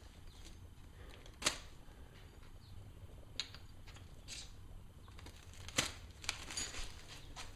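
Scattered sharp metallic clicks and clinks from hand tools and small metal engine parts as rocker arms and their nuts are taken off, the loudest about a second and a half in and again near six seconds, over a low steady hum.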